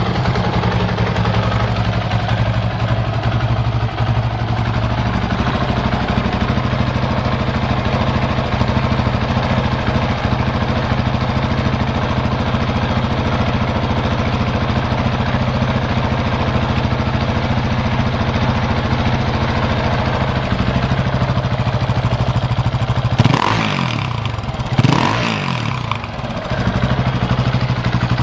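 KTM 690 Supermoto R's single-cylinder engine idling steadily, then revved twice in quick throttle blips near the end before dropping back to idle. The idle is even, with no odd noises, as the seller states.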